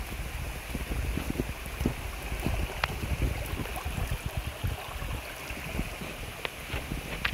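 Shallow rocky creek running steadily over stones and small cascades, with irregular low knocks and thumps from walking.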